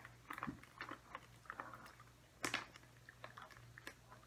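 A dog chewing soft chew treats: faint, irregular wet chews and smacks, the loudest about two and a half seconds in.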